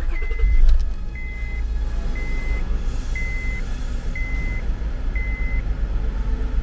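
2005 Honda Odyssey's V6 engine catching and running with a steady low rumble, while a dashboard warning chime beeps six times, about once a second. The new ignition lock cylinder turns and the engine starts.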